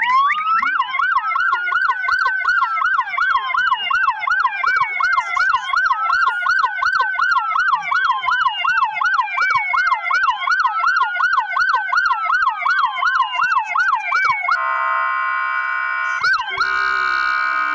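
Several emergency-vehicle sirens sounding together, a fast yelp cycling over slower wails and falling sweeps. About 15 s in they give way to a steady blaring horn tone, which breaks off briefly and sounds again near the end.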